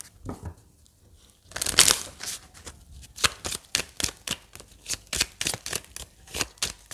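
A deck of tarot cards being shuffled by hand: a swish of cards, then quick, even card slaps, several a second.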